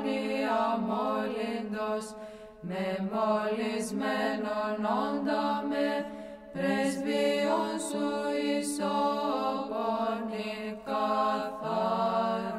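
Greek Orthodox Byzantine chant: a voice sings an ornamented, gliding melody over a steady held drone, with brief pauses between phrases.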